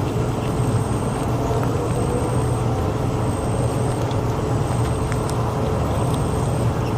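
A steady low mechanical rumble, even and unbroken, with a faint steady hum above it.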